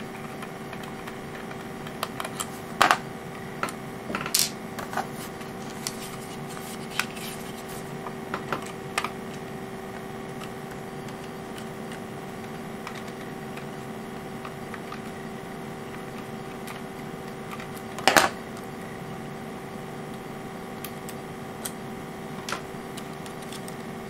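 A small screwdriver unscrewing the screws of a clear acrylic case: sparse clicks and taps of metal on metal and plastic, the loudest about three seconds in, four and a half seconds in and near the middle, over a steady background hum.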